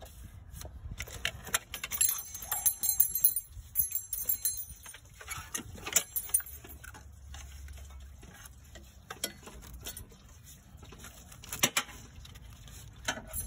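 Hand tools and loose metal engine parts clinking and clicking irregularly, with a burst of bright metallic jingling about two seconds in and a few sharp knocks later on.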